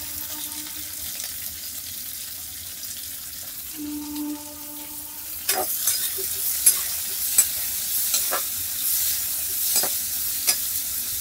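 Chopped onion sizzling in hot oil in a kadhai. From about halfway through, a metal spatula clicks and scrapes against the pan as the onion is stirred.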